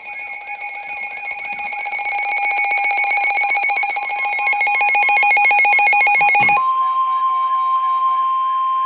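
Emergency alert tones. A rapidly pulsing electronic alarm beep runs for about six and a half seconds, then cuts over abruptly to one steady, single-pitched tone, typical of the NOAA Weather Radio warning alarm tone that signals a warning broadcast.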